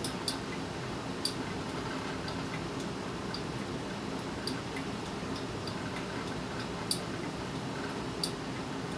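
Motorcycle front wheel with a GSXR brake rotor turned by hand on its axle, giving a light tick roughly once a second over a steady low hum.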